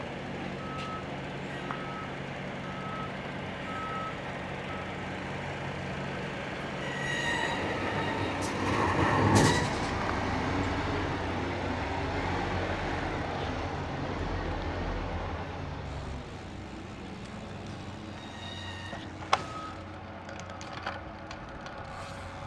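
A large vehicle's reversing alarm beeps steadily, a little more than once a second, for the first five seconds over a steady engine hum. About nine seconds in, a louder vehicle passes. The engine hum fades after about sixteen seconds, and a sharp click comes near the end.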